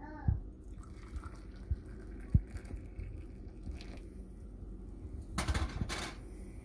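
Hot milk poured from a steel pan into a steel tumbler: a low, even pouring and splashing. It is followed about five and a half seconds in by a short cluster of louder metallic knocks and clatter.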